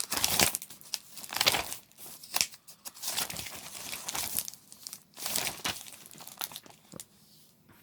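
Crinkling and rustling of something being handled, in uneven bursts, some sharp and some drawn out, fading toward the end.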